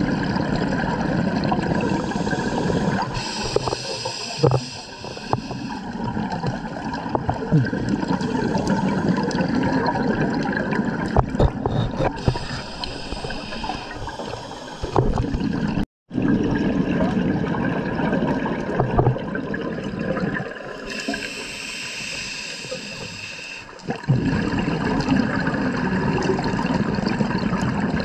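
Underwater sound of a scuba diver breathing through a regulator: gurgling, rumbling exhaust bubbles with small clicks, and three hissing inhalations, each about two seconds long and several seconds apart.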